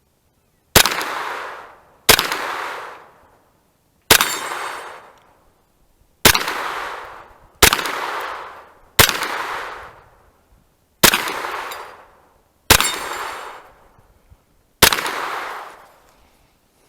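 Kel-Tec Sub2k 9mm carbine fired in slow, deliberate single shots: nine shots about one every one and a half to two seconds, each followed by a long echo that fades away.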